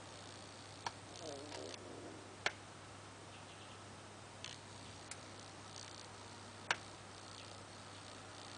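Lock picking: a homemade deep hook pick working the pins of an unbranded rim cylinder held under tension, giving faint scraping and four sharp, irregularly spaced clicks.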